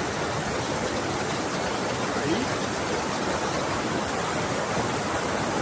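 River water rushing steadily over rocks, a continuous, even wash of sound.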